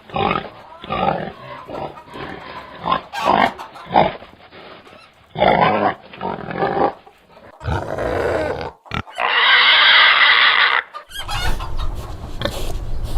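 Pigs grunting in short, irregular bursts, then a loud squeal about nine seconds in lasting a second and a half. Near the end, more grunting over a low rumble.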